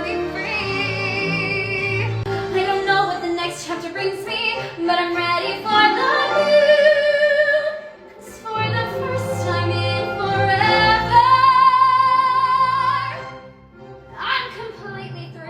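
A woman singing a Disney-style musical number over instrumental backing, in a light operatic voice. There is a short break about halfway through, then a long high note that is held before the music fades near the end.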